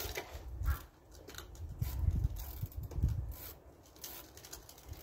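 Scattered faint clicks and knocks from hand tools and metal parts being handled at the front brake caliper, over an uneven low rumble of wind on the microphone.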